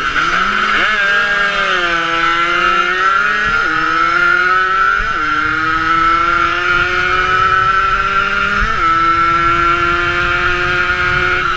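A 50cc two-stroke motorcycle engine pulling at full throttle. Its pitch climbs through each gear and drops sharply at the upshifts, about three and a half, five and nearly nine seconds in. Low wind rush runs underneath.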